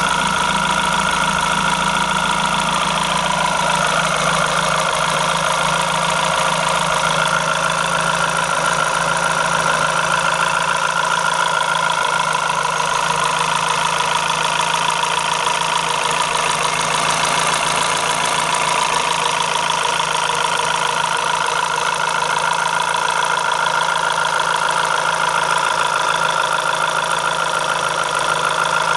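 Renault F4R 2.0-litre 16-valve four-cylinder petrol engine running steadily at idle, with steady high-pitched tones over the engine note.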